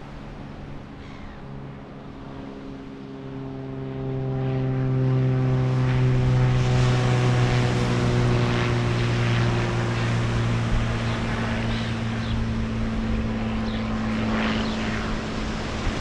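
A passing engine drone, steady and low, that swells about four seconds in and eases slightly toward the end, its pitch sinking slowly all the while.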